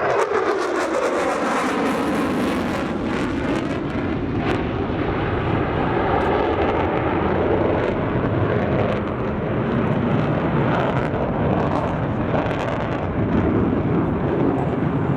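Loud jet noise from an F-35B Lightning II's single turbofan engine as the fighter flies a tight minimum-radius turn. The pitch drops sharply right at the start as it passes, then settles into a steady heavy rumble with slowly shifting, phasing tones.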